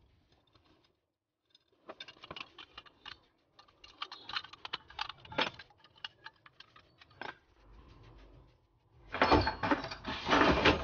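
Small metal clinks and rattles as nuts and a steel stand are fitted by hand to the base of a cast-iron submersible pump motor, many quick clicks over several seconds. Near the end comes a louder scraping clatter as the heavy motor is shifted on the wooden workbench.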